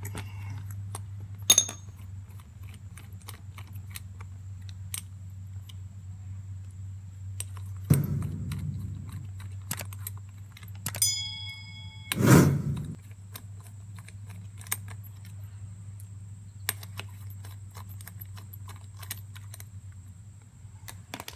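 Small metallic clicks and clinks of a 10 mm wrench working loose the nuts that hold a cooling fan to its fan clutch, with a brief metallic ring about 11 s in and a few louder knocks, the loudest about 12 s in.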